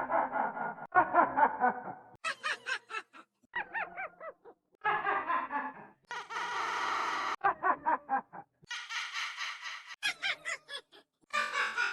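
A witch's cackling laugh played again and again through different voice effects, each version a second or two long: some pitch-shifted high and thin, some lower, with the 'ha-ha-ha' pulses coming quickly in each.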